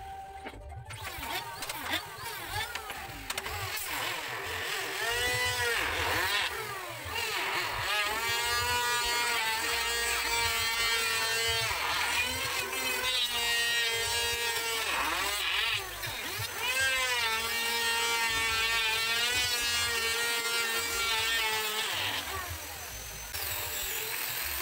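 Electric angle grinder with a sanding disc working a teak window frame. It is switched on in a few short spurts, then runs for long stretches, its whine dipping and rising in pitch as it is pressed against the wood, and it stops a couple of seconds before the end.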